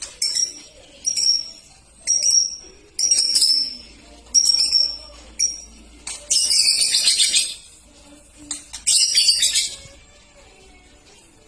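Caged songbird singing: a run of short, high, downward-sliding calls about a second apart, then two longer harsh chattering phrases.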